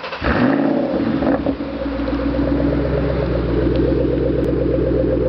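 Ford Mustang Shelby GT500's supercharged V8 flaring loudly for about a second as it catches, then settling into a steady idle.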